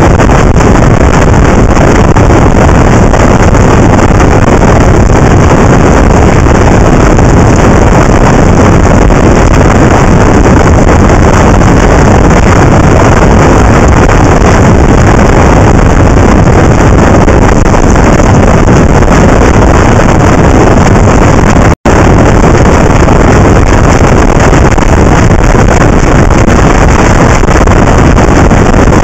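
Wind rushing over the microphone of a camera on a motorcycle moving at road speed, a loud, steady roar that swamps the engine and the tyres on the wet road. The sound drops out for an instant about 22 seconds in.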